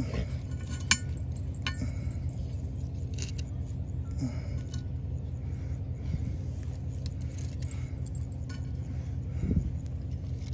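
Metal tongs clinking as they pick up charcoal briquettes and set them on a cast iron Dutch oven lid: scattered sharp clinks, the loudest about a second in. A steady low hum runs underneath.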